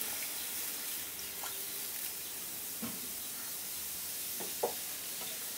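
Warm water sizzling and hissing in a hot kadai (Indian wok) where moong dal has just been dry-roasted, with a few small pops.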